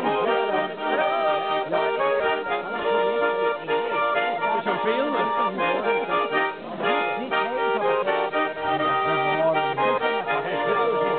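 Three Swiss button accordions (Schwyzerörgeli) playing a traditional folk tune together in steady chords.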